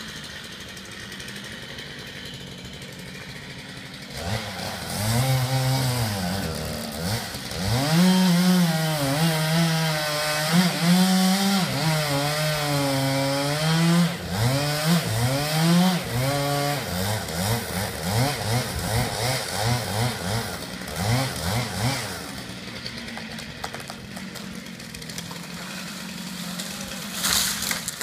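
Chainsaw cutting through a tree trunk from about four seconds in, its pitch rising and dipping over and over as it revs and bogs under load. Near the end the felled tree hits the ground with a short loud rush.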